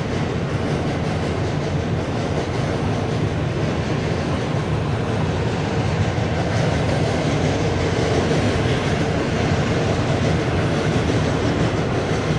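Indian Railways passenger train running over a long river bridge: a steady rumble of wheels on rail with clickety-clack, a little louder in the second half.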